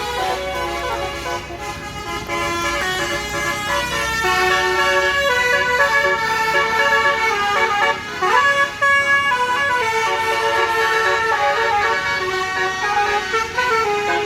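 Tour bus basuri musical air horn ('telolet' horn) playing a melody in steady stepped notes, with a quick sliding swoop in pitch about eight seconds in.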